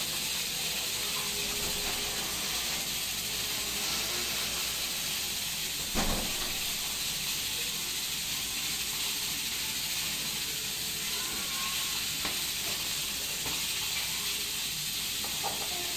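A steady hiss runs throughout, with a single sharp knock about six seconds in and a few light knife taps on a plastic cutting board as tomatoes are sliced.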